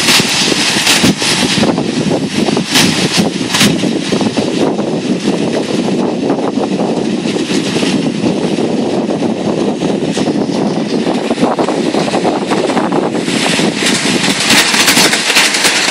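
Dog sled runners scraping and hissing over packed snow as a team of huskies pulls it, a steady grinding rumble with scattered knocks and rattles from bumps in the track.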